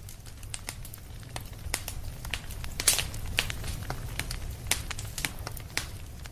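Campfire of burning logs crackling, with irregular sharp pops over a low rumble.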